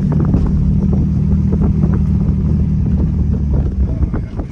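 A vehicle on the move, its engine droning steadily, with frequent small rattles and knocks over it. The engine note eases off about four seconds in.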